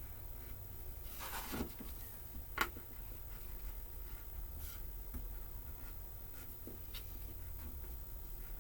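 Knife scoring and cutting through cardboard gasket material in slow strokes: a scratchy drag about a second in, a sharp click a moment later, then fainter strokes, over a steady low hum.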